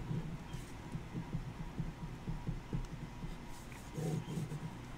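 A Fisher Space Pen writing letters on a sheet of paper on a tabletop: a quick, irregular run of soft taps and scratches from the pen strokes.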